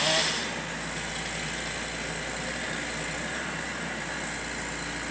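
A chainsaw dies away about half a second in, leaving the excavator's engine running steadily.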